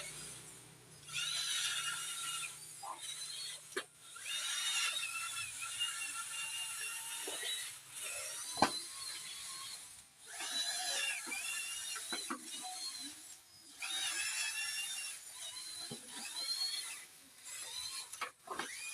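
Small electric motors of a toy RC vehicle whining in repeated bursts of one to three seconds, the pitch swooping up and down as they start and stop, with a few sharp clicks in between.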